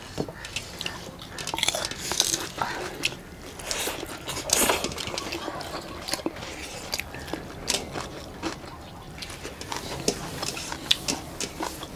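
Close-up eating sounds: quail meat and barley rice being chewed and bitten, with many irregular short wet clicks from mouths and fingers.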